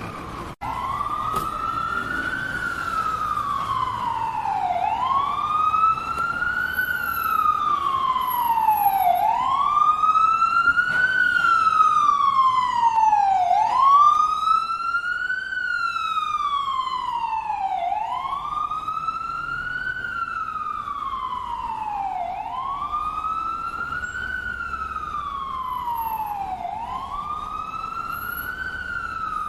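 Ambulance siren wailing, starting sharply about half a second in, with a slow, regular rise and fall in pitch, each cycle about four seconds long. It grows louder toward the middle, then eases off a little.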